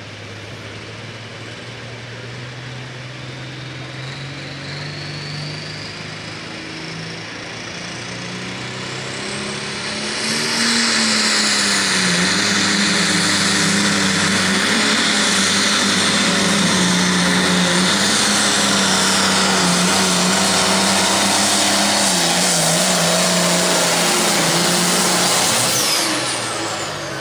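Turbocharged diesel engine of an International Harvester Limited Pro Stock pulling tractor under load on the sled. Its revs and turbo whistle climb, then about ten seconds in it jumps to full power and runs loud and steady. Near the end it drops off, with the turbo whistle falling.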